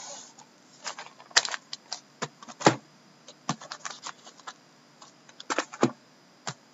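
Shrink-wrapped cardboard boxes of hockey cards being turned over and handled: irregular plastic crinkles, clicks and taps, the loudest about two and a half seconds in, with a quick cluster near the end.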